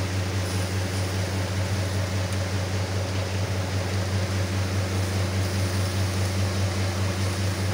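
Electric fan running steadily: a low motor hum under a constant rush of air.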